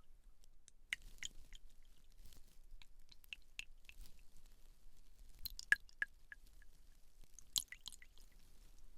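Close-miked, soft, sticky clicks and crackles of a hair-care gel being worked with the fingers, with a louder cluster a little past halfway and another toward the end.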